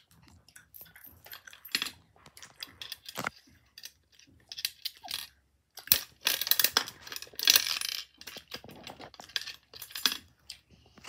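Copper pennies clinking and dropping as they are handled and fed into a toy gumball machine: a run of irregular sharp metallic clicks and jingles, busiest and loudest about six to eight seconds in.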